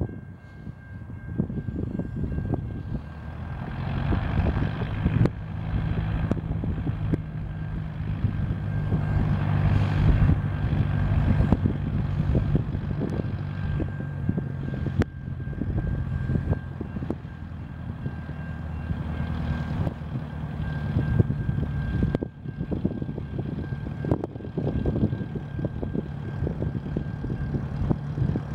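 Boeing YL-15 Scout's flat-four piston engine and propeller running steadily at taxi power, getting louder over the first few seconds as the light plane comes closer.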